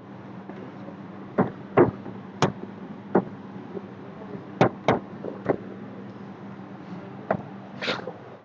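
A whiteboard being wiped clean with a handheld duster: scrubbing strokes with about nine sharp knocks, irregularly spaced, as the duster strikes the board. A steady low hum runs underneath.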